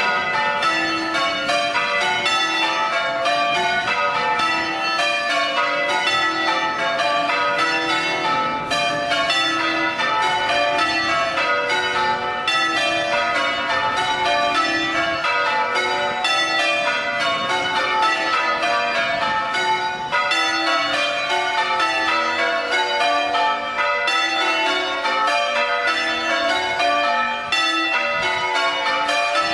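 Church bells change ringing: tower bells swung full circle strike one after another in a steady, unbroken stream, their order shifting from row to row as a quarter peal is rung.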